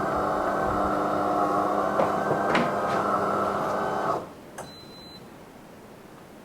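De'Longhi Eletta bean-to-cup coffee machine running with a steady mechanical hum for about four seconds, then cutting off.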